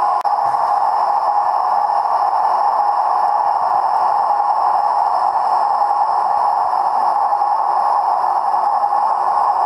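Gauge 1 model of an SBB Ae 8/14 electric locomotive running on the track: a steady, even whirring rush of its motor and wheels, broken by a very short dropout just after the start.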